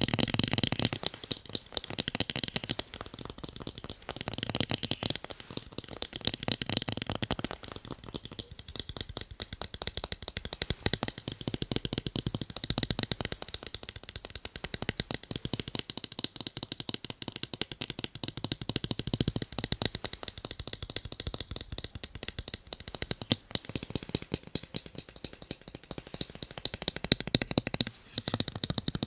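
Fast tapping on a pair of eyeglasses: a dense, unbroken run of quick light clicks that grows louder and softer in waves.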